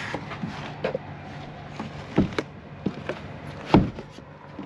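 Plywood false-tailgate panel knocking against the pickup's bed and tailgate as it is worked into place by hand: a few scattered knocks, the loudest late on, over a faint steady hum.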